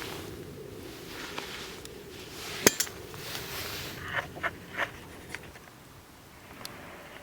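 Wood fire burning with a low steady rush, crackling and snapping. A sharp pop about two and a half seconds in is the loudest, followed by a quick cluster of pops a second or two later.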